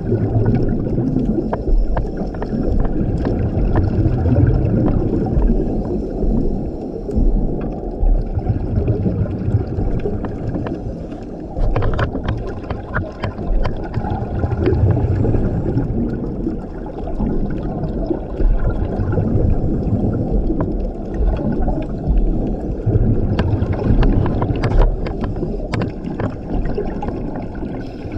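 Scuba diver breathing through a regulator underwater: exhaled bubbles burble out in a low rush about every four to five seconds, with the hiss of inhaling between them and a few sharp clicks.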